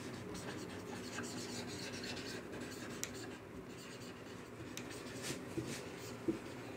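Marker pen writing on a whiteboard: faint scratching strokes of the felt tip, with a few short ticks as the tip touches down.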